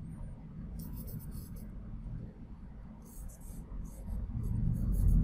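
Charcoal pencil scratching on layout paper in short bursts of strokes, once about a second in and again in a run of strokes from about three seconds on. A low rumble runs underneath and swells near the end.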